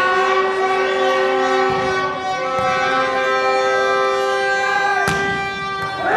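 Several steady droning tones at different pitches, held for seconds and overlapping, with one sharp smack about five seconds in.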